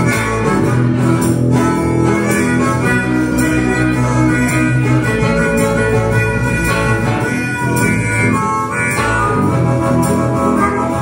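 Blues harmonica cupped against a vocal microphone, playing held and bending notes over a live band with electric guitar.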